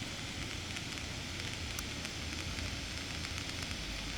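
Firework pyrotechnics hissing steadily, with faint scattered crackles.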